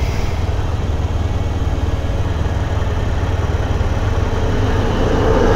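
Combine harvester's diesel engine driving past, over a steady low rumble, and growing louder near the end as the machine comes alongside.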